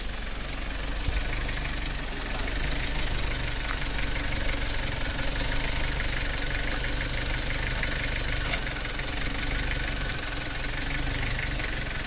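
Kubota tractor diesel engines running steadily with a fast diesel clatter.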